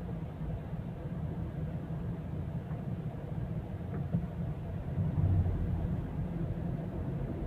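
Car driving on a city street, heard from inside the cabin: a steady low rumble of engine and tyre noise, swelling louder about five seconds in.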